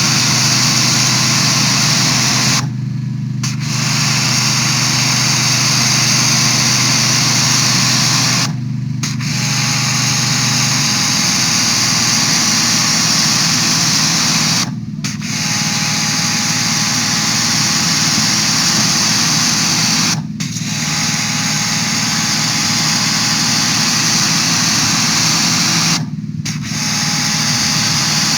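Sun Joe SPX3500 electric pressure washer spraying through a 15-degree nozzle: a loud, steady hiss of the water jet over the running motor and pump. The spray drops out briefly about every six seconds.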